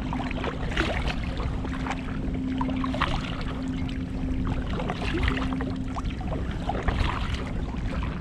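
Water splashing and lapping against a kayak, with many small irregular splashes, and wind rumbling on the microphone. A faint steady hum sits underneath, breaking off now and then.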